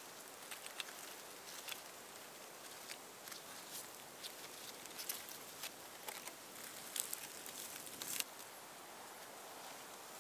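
Thin cord being wrapped and pulled tight to lash a wooden pole to a tree trunk: a scatter of small scratchy clicks and rubs over faint outdoor hiss, with one sharper click about eight seconds in.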